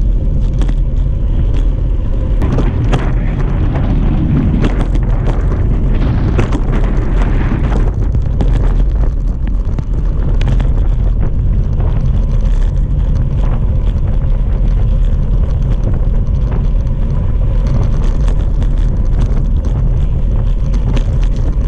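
Wind buffeting a handlebar-mounted action camera's microphone while riding a road bike, heard as a steady loud low rumble. Tyre and road noise mixes in, with scattered small clicks and knocks from bumps.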